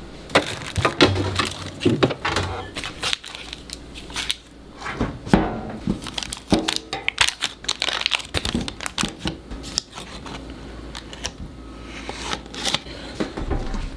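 Crinkling and rustling of a butter pat's foil-paper wrapper being unfolded and handled, with many small sharp clicks and taps; a refrigerator door is opened near the start, and a knife taps against the wrapper near the end.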